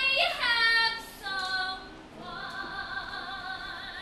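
A woman singing solo in a musical-theatre song: loud high notes in the first second, sliding down in pitch, then a short note and one long held note.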